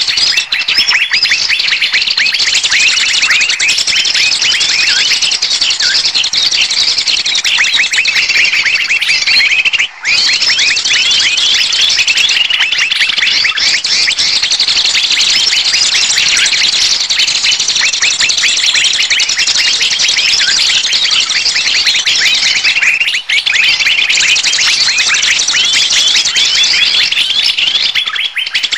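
Bird-luring recording of a dense chorus of many small birds, a busy mass of rapid, high overlapping chirps and twitters used to draw wild birds in for trapping. It drops out briefly twice.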